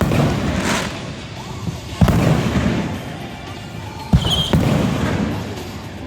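Fireworks shells bursting: two sharp booms about two seconds apart, each trailing off, with music and voices underneath.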